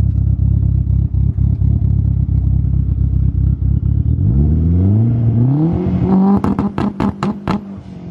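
Big-turbo Mitsubishi 4G63 engine of a first-generation Eagle Talon, heard at its exhaust tip. It idles with a low, pulsing rumble, then is revved up about four seconds in and held. Near the end a quick run of sharp cracks comes from the exhaust.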